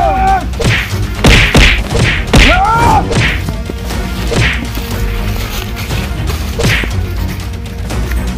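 A rapid run of fight-scene punch and kick hits, sharp whacks and thuds, thick in the first three seconds and then more spaced out.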